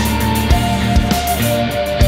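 Rock band recording playing an instrumental passage: drums keep a steady beat under bass, with a held high note that steps down in pitch about halfway through.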